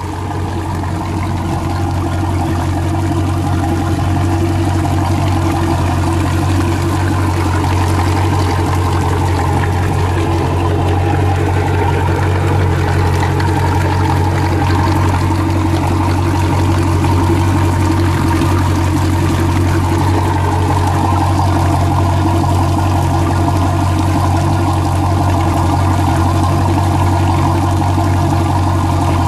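Rebuilt sterndrive boat engine idling steadily on a garden-hose flushing attachment, running smoothly and sounding good. Fresh water pours and splashes from the outdrive and propeller onto the pavement.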